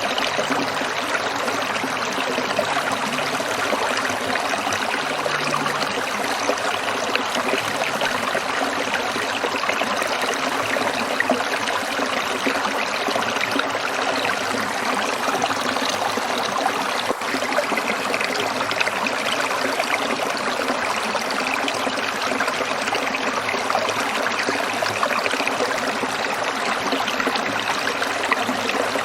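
A stream trickling and burbling over rocks, a steady, unbroken rush of water.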